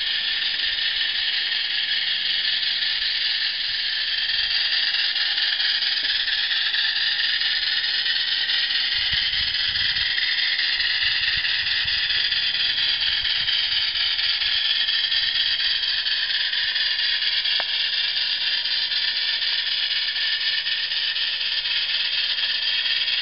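A high-pitched, continuous squeal made of several wavering tones from the wheels of a long model train. A 16mm-scale live-steam Shay is hauling a rake of lead-weighted wagons slowly along the garden-railway track.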